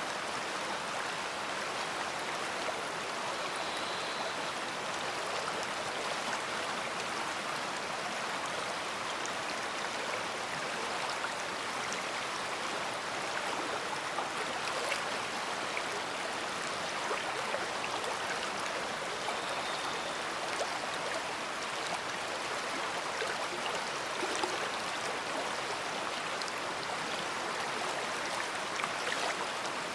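Big river flowing: a steady, even rush of moving water with small irregular splashes.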